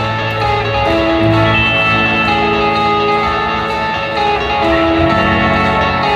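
Live rock band playing through a festival PA: guitars, including a strummed acoustic, over bass and drums, with held chords that change every second or so.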